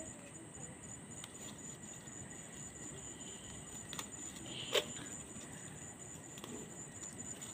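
Quiet rustling of leaves and soft snapping of stems as leafy greens are picked by hand, with a few short clicks, the sharpest about five seconds in.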